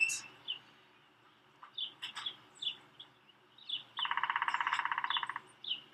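Songbirds chirping, with short scattered calls and one rapid, evenly pulsed trill about four seconds in that lasts about a second and a half.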